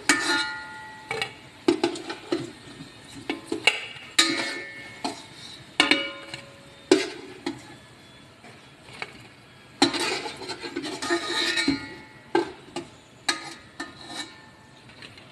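A spoon knocking and scraping against a metal cooking pot while fried saba bananas are lifted out of hot oil: a string of irregular clinks, several leaving a short metallic ring.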